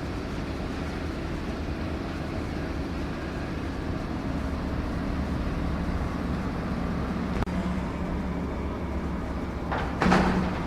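Steady low engine drone of a construction machine, growing a little louder after the middle, with a loud rushing burst near the end.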